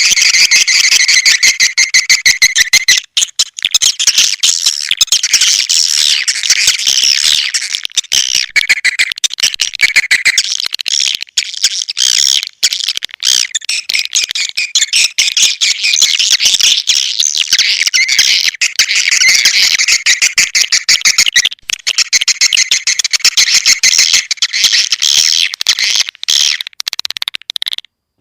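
Swiftlet lure call: dense, rapid, high-pitched twittering and chirping of swiftlets, the kind of recording played to draw swiftlets into a nesting house. It cuts off suddenly just before the end.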